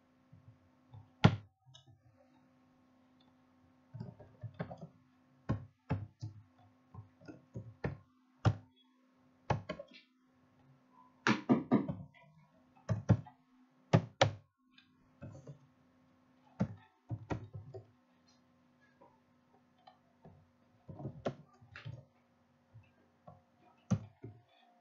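Computer keyboard being typed on: irregular keystroke clicks and taps, some in quick runs, over a steady low hum.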